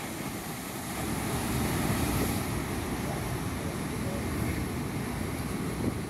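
Heavy ocean surf crashing and rushing, swelling to its loudest about two seconds in, with wind buffeting the microphone.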